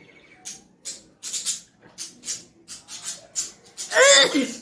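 A person's run of about ten short, quick hissing sniffs, then near the end one loud sneeze with a voiced 'achoo' that falls sharply in pitch: a sneeze set off on purpose by tickling the nose.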